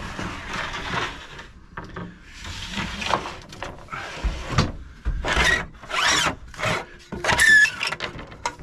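Track-saw guide rails being slid in and out of their storage rack: a series of scraping, rubbing slides, a couple with a short squeak.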